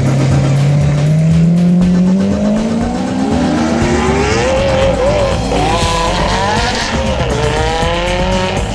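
Lamborghini Aventador V12 accelerating hard away, its pitch climbing steadily for about four seconds, then dipping and climbing again with each upshift.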